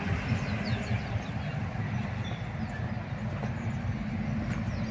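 Steady rumble of road traffic on the BR-116 highway, with faint, short, high chirps scattered over it.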